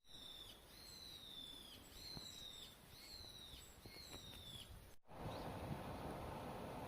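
Faint bird calls: five high, drawn-out whistled notes in a row, each sliding slightly down in pitch. About five seconds in, they cut off sharply into a steady low hiss with a faint chirp or two.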